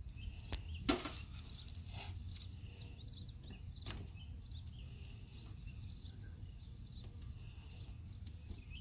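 Small birds chirping over a steady low hum, with a few sharp clicks as hive frames and tools are handled, the loudest about a second in.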